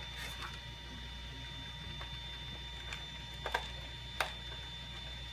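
A handful of faint, scattered clicks from a Cube 3 printer's filament cartridge as its feed gear is turned by hand with a screwdriver to draw new filament in, over a steady low hum.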